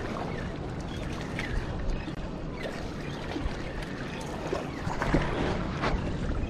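Steady wash of sea water around the jetty rocks, with wind noise and a few faint clicks.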